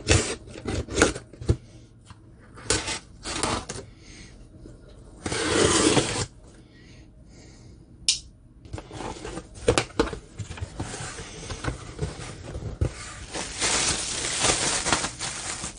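Cardboard shipping box being opened: a small pocket knife scraping and slitting the packing tape in short strokes, with one longer rasp about five seconds in, and knocks and clicks as the cardboard flaps are handled. Near the end, plastic packaging bags rustle and crinkle.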